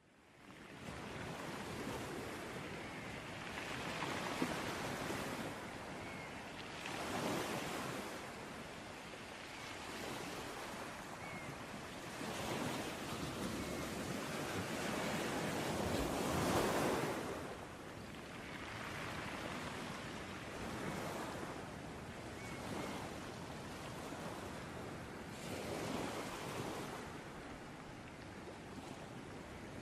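Ocean surf: waves breaking and washing up a shore, a steady rush that swells and ebbs every few seconds, loudest about halfway through.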